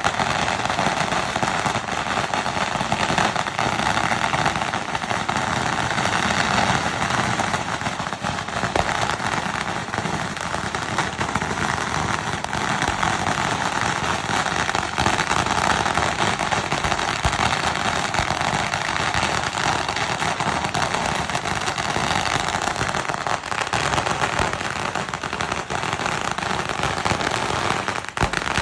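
Fireworks going off in a dense, unbroken crackle of many small pops, steady in loudness throughout.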